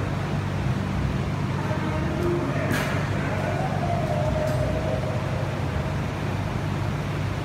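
Steady low background rumble of room noise, with a brief faint rustle about two and a half seconds in.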